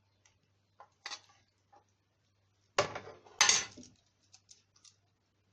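Kitchen utensils and dishes clinking while salt is added: a few light taps, then two louder clatters about three seconds in.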